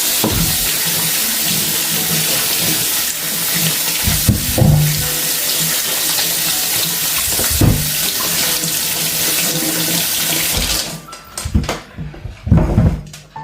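Kitchen tap running hard into a sink as sweet potatoes are washed under it, with a few knocks as they bump in the sink. The water is shut off near the end, followed by a few clunks.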